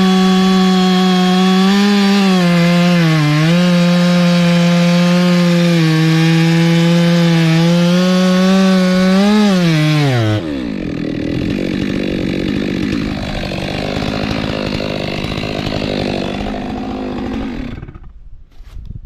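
Stihl chainsaw at full throttle cutting through a frangipani trunk, its pitch dipping briefly a few times as the chain loads in the wood. About ten seconds in the throttle is released and the saw runs on more quietly, then it stops near the end.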